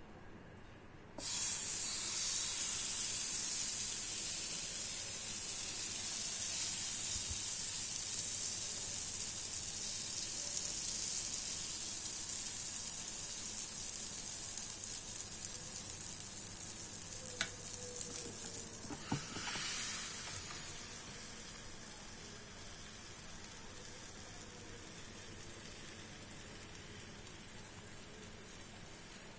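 Waffle batter sizzling on the hot plate of an electric waffle maker, starting suddenly about a second in as it hits the plate and slowly fading. A few knocks come about two-thirds of the way through, after which the sizzle is quieter.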